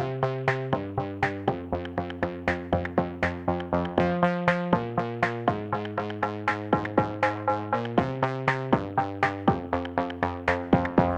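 Background electronic music: quick, evenly spaced synth notes over chords that change every second or two.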